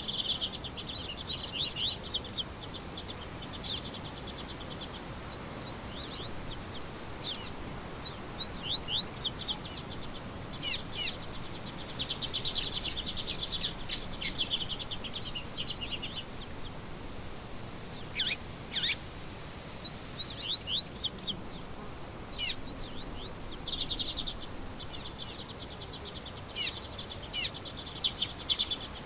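Several songbirds singing together: many quick high chirps and short sweeping notes overlapping with fast, buzzy trills. Two loud sharp calls come about two-thirds of the way through, over a faint steady hiss.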